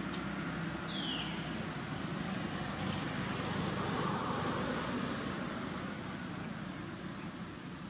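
Steady outdoor background noise like distant road traffic, swelling a little in the middle, with one short, high, falling chirp about a second in.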